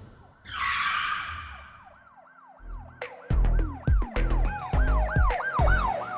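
A whoosh, then a fast rising-and-falling siren wail, about three swoops a second, over a heavy bass beat with sharp ticks that comes in about halfway through.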